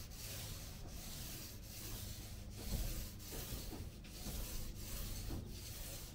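Top coat of paint being spread over a countertop in steady back-and-forth rubbing strokes, about three strokes every two seconds.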